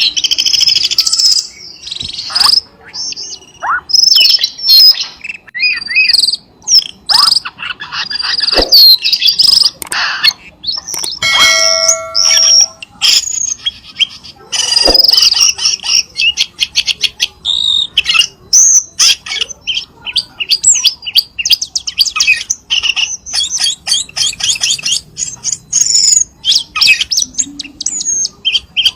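Cucak keling song played as a lure call: a fast, near-continuous run of varied chirps, whistled notes and rapid chattering trills, with hardly a pause.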